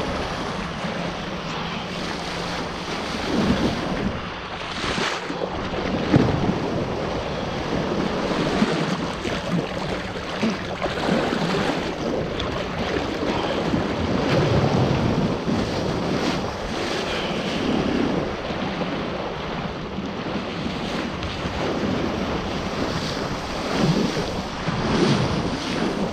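Wind buffeting the microphone over water rushing and splashing beneath a kite foil board, rising and falling in uneven surges.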